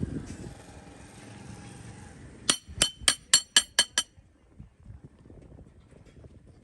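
Steel being struck: six quick, sharp ringing metallic clinks at about four a second, starting a little over two seconds in, over a faint steady workshop hum.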